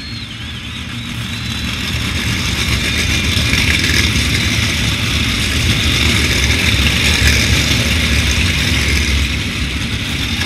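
A pack of winged 305 sprint cars running on a dirt oval, their V8 engines at high revs as the field streams past. The engine noise builds over the first few seconds, stays loud as the cars go by, and eases slightly near the end.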